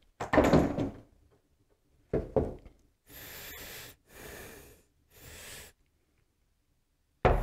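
Wooden knocks and thuds as a caul is set on top of a freshly glued stack of hardwood veneers. In the middle come three short, even hissing bursts.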